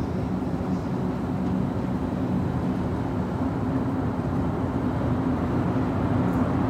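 Steady low mechanical hum of a metro station, with a couple of steady low tones, growing slightly louder near the end.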